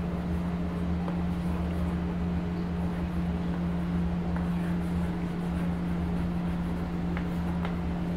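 A steady low hum with a faint rumble beneath it, and a few faint ticks near the end.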